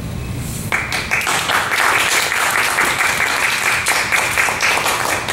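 Audience applauding, the clapping starting just under a second in and carrying on steadily.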